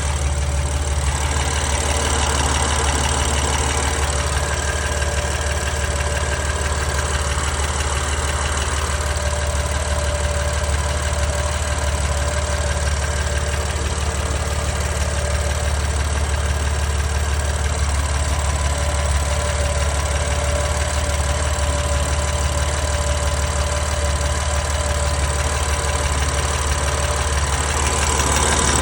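BMW S55 twin-turbo straight-six idling steadily after a cold start, with a ticking noise in its running.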